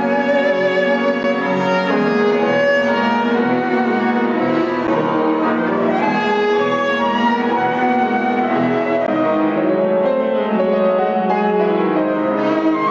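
Chamber trio of flute, cello and piano playing a contemporary classical piece, with the flute's line over bowed cello and piano.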